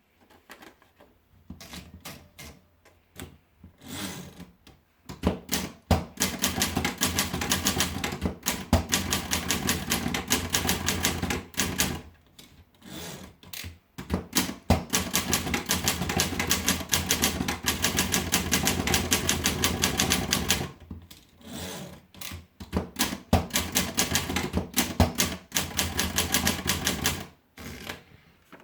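Everest Model 90 manual typewriter being typed on: quick runs of sharp key strikes in three long bursts with short pauses between, and a few lighter clicks before the first run.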